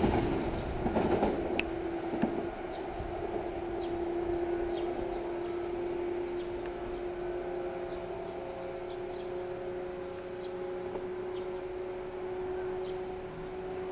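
Blue-and-white local electric train approaching from a distance along the line: a steady low hum, with short high bird chirps scattered over it. A louder rush of noise fades away about two and a half seconds in.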